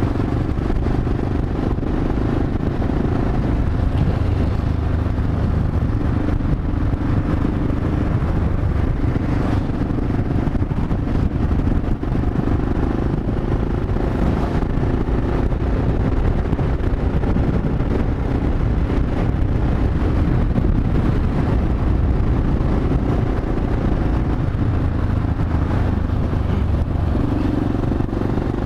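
Yamaha XT 600E's single-cylinder four-stroke engine running at road speed, its note rising and falling a few times with the throttle, over a steady rushing of wind and road noise.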